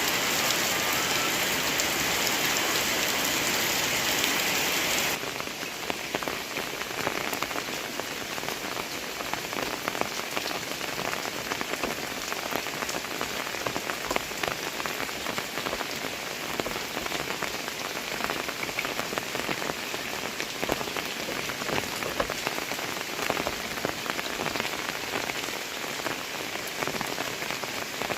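Heavy rain falling, with many individual drops ticking. For about the first five seconds a louder, even hiss sits over it, which cuts off abruptly.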